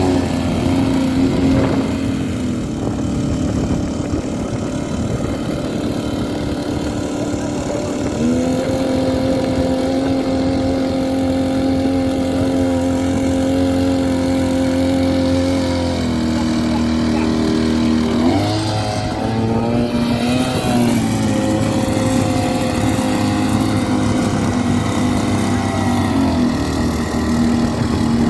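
Small two-stroke petrol engine of a Firman FFP15 floating water pump running steadily. Its speed steps up about a third of the way in and drops again a little past halfway, is revved up and down briefly, then settles.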